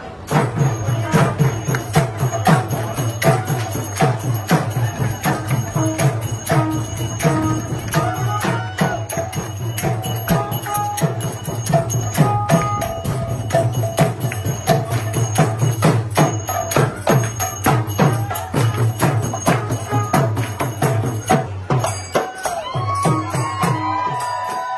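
Live devotional festival music: fast beats on double-headed mridanga hand drums with bright jangling percussion over a held melody. Crowd voices rise near the end.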